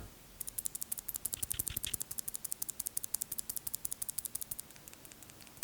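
Mechanical keyboard switches being pressed over and over: a fast run of sharp clicks, about a dozen a second, typical of clicky Blue switches, turning much fainter near the end.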